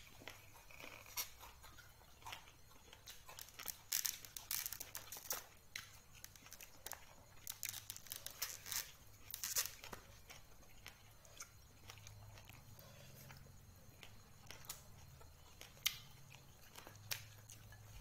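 Close-up sounds of eating and handling food in a ceramic bowl: irregular clicks, crackles and tearing from fingers and a spoon working the food, busiest a few seconds in and again around the middle. A faint steady low hum runs underneath.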